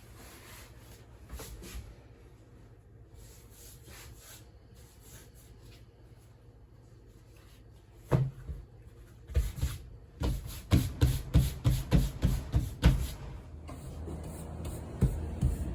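Handmade soba being worked on a wooden board: quiet rubbing and handling, then a run of rhythmic wooden knocks, about three a second, in the second half.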